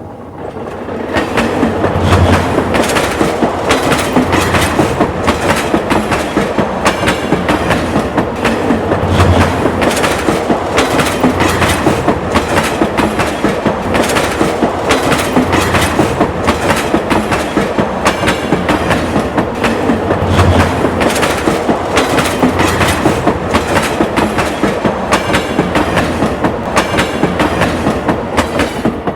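Train running along the track, its wheels clicking rhythmically over the rail joints in a steady clickety-clack that builds up over the first second or so.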